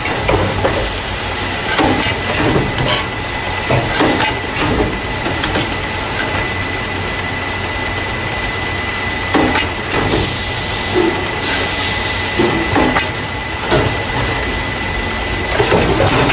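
Carton caser running: irregular clacks and knocks as paper juice and milk cartons are moved into plastic crates, over a steady machine hum with a thin high tone. A hiss lasting about a second and a half comes about ten seconds in.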